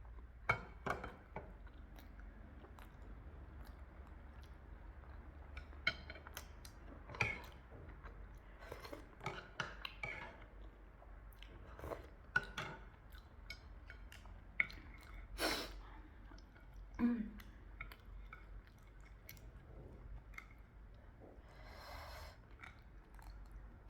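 Close-miked chewing and wet mouth smacks of a person eating, with short sharp clicks scattered irregularly throughout.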